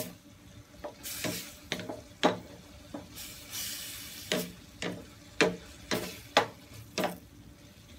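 Wooden spatula stirring vegetables in a stainless steel frying pan: sharp knocks and scrapes against the pan, about a dozen in all, over the hiss of the vegetables sizzling, which swells about three to four seconds in.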